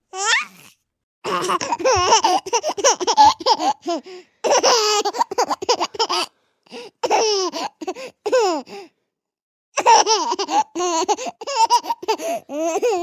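A baby laughing in a run of high-pitched bouts that rise and fall in pitch, with short silent breaks between them.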